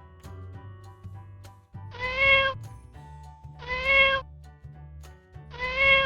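Kitten meowing three times, about two seconds apart, each meow about half a second long, over background music.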